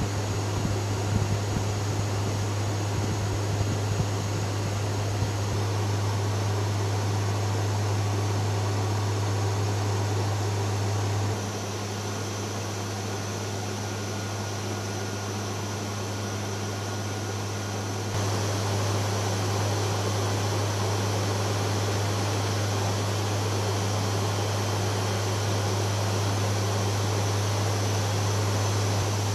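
Steady drone of a Lockheed WC-130J's four turboprop engines and six-blade propellers in flight, with a strong low hum under a wide rushing noise. It drops a little in level about 11 seconds in and comes back about 18 seconds in.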